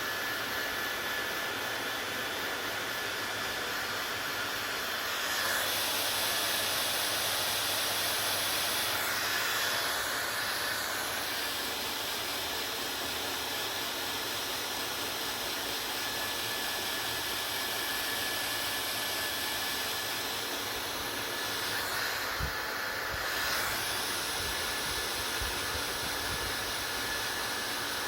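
Hair dryer running steadily: an even rushing hiss with a thin, faint whine. Its tone shifts slightly a few times, around the sixth, tenth and twenty-third seconds.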